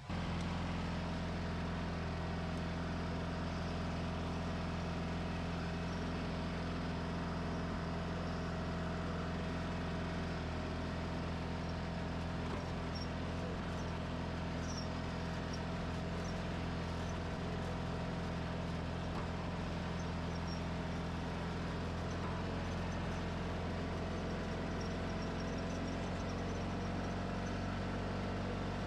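John Deere 420 garden tractor's Onan twin-cylinder engine running steadily as the tractor drives along a gravel driveway, heard close up from on board the tractor.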